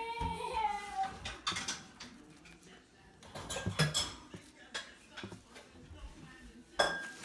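Kitchenware clattering: scattered clinks and knocks of dishes and utensils being handled, with the loudest knock near the end.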